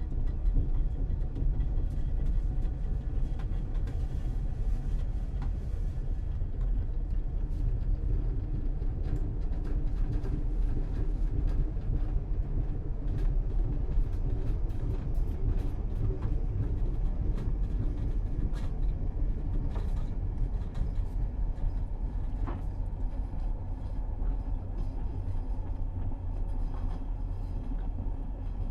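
Interior of a commuter train running along the track: a steady low rumble with frequent small clicks and rattles from the carriage.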